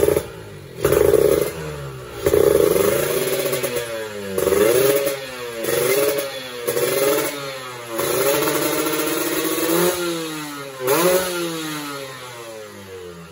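Two-stroke motorcycle engine with an expansion-chamber exhaust, revved in about eight quick throttle blips whose pitch sweeps up and falls back, then dropping back toward idle near the end. The revs climb fast on only a small twist of the throttle, and the idle is raised and unsteady, which worries the owner after fitting a grounding booster kit.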